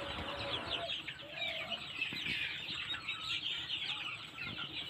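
A large flock of young Sonali chickens calling together: a dense chorus of many overlapping short, high, falling peeps.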